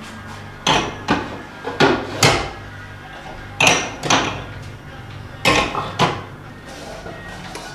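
Ceramic ramekins of bread dough set down one after another in a large aluminium pot, about eight sharp knocks in four pairs, each with a short ring. A low steady hum runs underneath.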